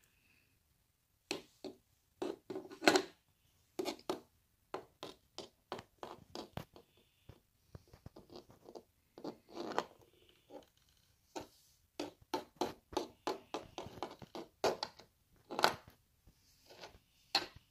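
Small plastic doll figures and pieces of a Cabbage Patch Kids toy playset being handled and set down, making irregular clicks, taps and light scrapes.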